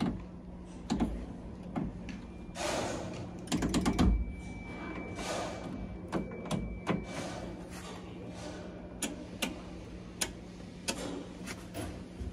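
Metal control handles in a train driver's cab being worked by hand: the master controller and reverser lever clicking and clunking through their notches in irregular sharp clicks, over a steady low hum.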